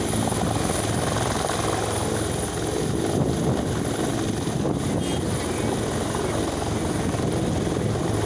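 Helicopter with its main rotor turning as it settles onto the helipad: a steady, loud rotor and engine noise with a fast low chop and a thin high whine.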